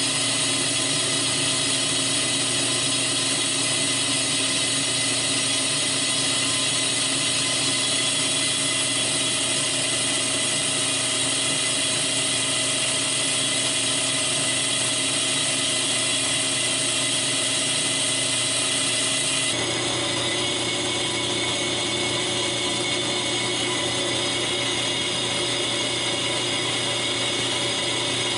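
Metal lathe running while its cutting tool turns down a brake rotor: a steady machine whine made of several held tones. The tones shift slightly about twenty seconds in.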